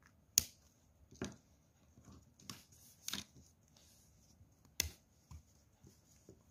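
Plastic water-colour brush markers being handled: a string of sharp clicks and knocks as the pens and their caps are picked up, opened and set down. The two loudest clicks come about half a second in and just before five seconds.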